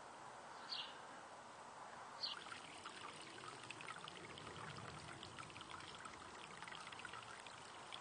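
Hot water from a solar heater's PEX outlet pouring into a glass measuring cup, a faint steady splashing and trickling with fine fizzing crackle. Two short high chirps come in the first few seconds.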